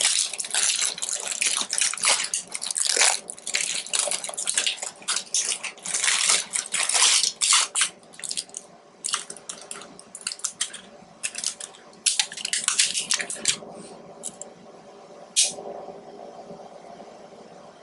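Plastic cookie wrapper crinkling and rustling as it is opened and handled, in a quick irregular string of rustles that thins out after about thirteen seconds to a few last ones.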